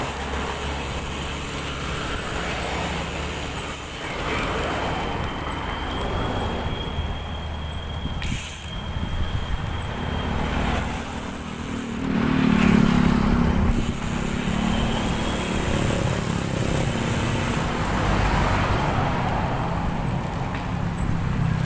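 Road traffic going by a cyclist, over a steady low rumble of wind on the microphone, with a vehicle passing close and louder about twelve seconds in.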